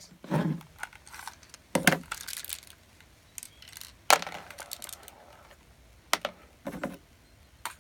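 Handling noise: a string of irregular knocks, clicks and rubbing sounds with short quiet gaps between them.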